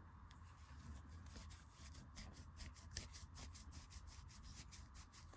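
A cloth being rubbed over a plastic LEGO plate to polish it: faint, quick rubbing strokes repeating several times a second.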